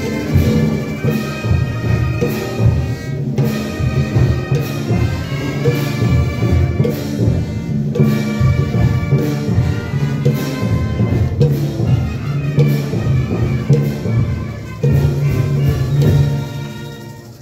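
Procession band of brass with drums playing a piece of sustained brass chords over a low drum and bass line.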